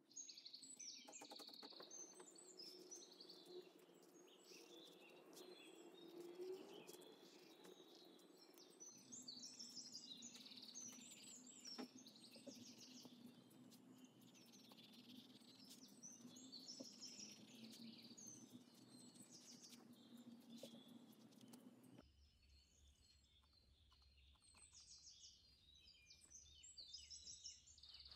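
Faint birds chirping and twittering in the background, in short repeated high phrases, over a low steady hum that shifts abruptly about a third of the way in and drops away about three-quarters through.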